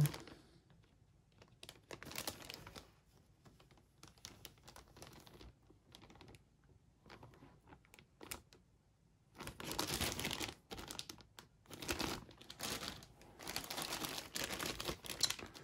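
Clear plastic bags of model-kit sprues crinkling as they are handled, faint and scattered at first, then louder and more continuous from about nine seconds in.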